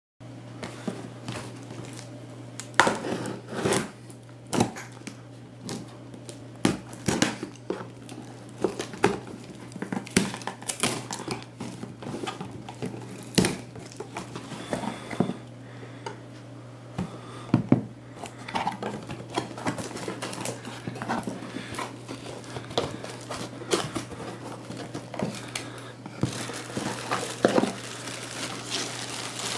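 Clear plastic wrap being torn and crinkled off a cardboard box by hand, with irregular crackles and knocks as the cardboard flaps are pulled open. The crinkling thickens near the end as the box opens onto bubble wrap.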